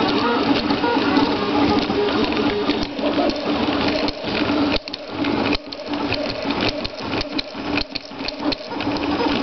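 RepRap Prusa 3D printer printing fast at 120 mm/s, its carriages running on PLA bushings. The stepper motors sing in steady tones that jump in pitch as the moves change, over a constant rapid clicking and rattling of the moving head and bed.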